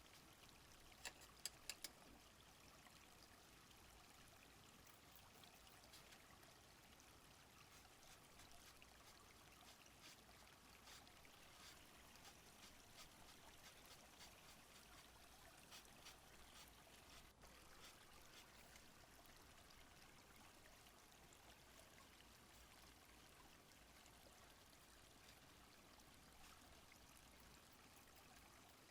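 Faint, steady flowing-stream ambience, with a quick run of four clicks about a second in.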